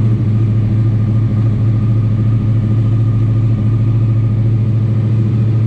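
2014 Yamaha R1's crossplane inline-four engine idling steadily, just after being started.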